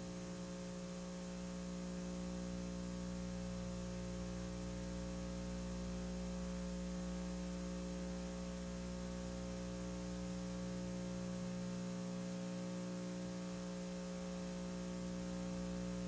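Steady electrical mains hum with a faint hiss of tape or line noise, one unchanging buzzing tone with its overtones. No race sounds come through it.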